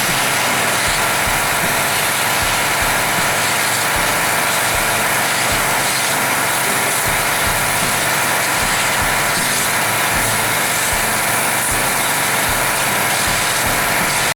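Small gasoline engine of a pressure washer running steadily on its freshly replaced carburetor, warming up.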